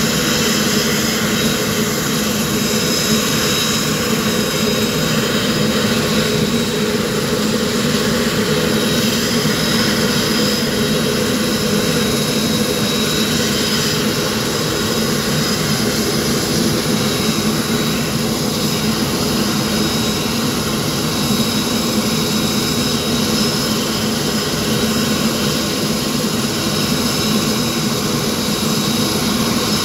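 Saab 340's General Electric CT7 turboprop engine running steadily at ground idle, a continuous drone with a high turbine whine over it.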